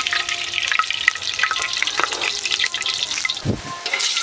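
Cooking oil crackling and sizzling in a hot kadai (wok) just after being poured in, heating up before the fish goes in: a dense, even crackle of many small pops.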